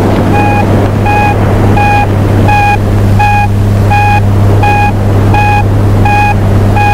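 Steady electronic beeping from a handheld detector: short beeps of one tone repeating evenly, about one and a half a second, over a steady low rumble.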